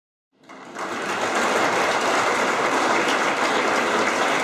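Audience applauding, a dense steady clatter of clapping that starts about half a second in.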